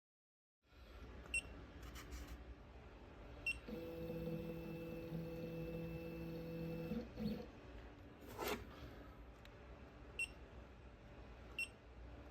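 Small benchtop CNC mill's stepper motors running with a steady hum for about three seconds, set between several short high electronic beeps, with one sharp click about eight and a half seconds in.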